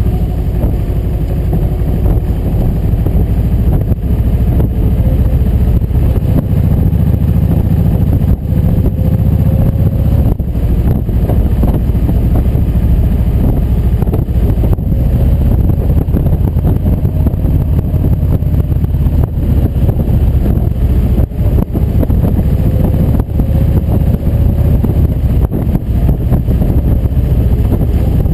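Motorcycle V-twin engines running at steady cruising speed on an open road, with heavy wind rumbling over the microphone. The engine note rises and falls gently as the riders ease on and off the throttle.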